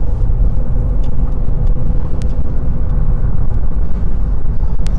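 A vehicle driving, heard from inside the cabin: a steady low rumble of road and engine noise, with a faint steady hum above it.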